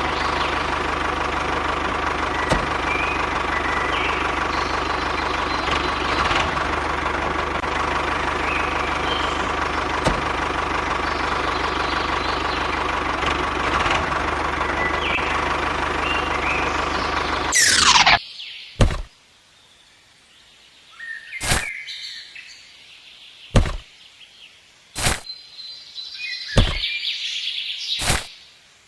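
A machine engine running steadily, ending suddenly with a quick falling whoosh about eighteen seconds in. It is followed by a series of short, sharp knocks a second or two apart.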